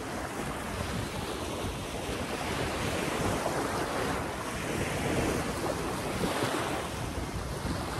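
Small waves breaking and washing up on a sandy beach, the surf swelling and easing every couple of seconds, with wind buffeting the microphone.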